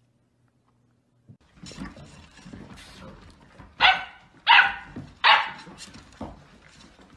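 A puppy barks three times in quick succession, with fainter noise around the barks.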